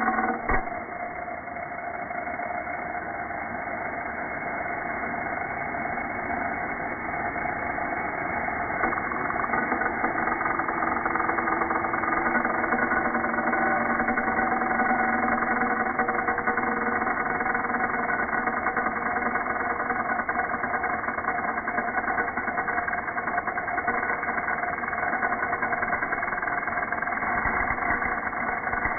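Bosch angle grinder cutting into a metal pipe stub, its motor and disc grinding slowed down with the slow-motion footage into a steady low drone of several held tones.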